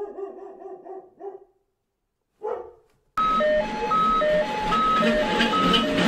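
A dog barking, a longer bark run in the first second and a half and one short bark about two and a half seconds in. About three seconds in a simple electronic tune of clean stepped notes starts over a steady background bustle.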